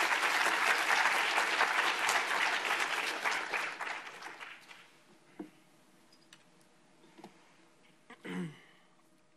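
Audience applauding at the end of a talk, the clapping dying away about four to five seconds in. A few faint clicks follow.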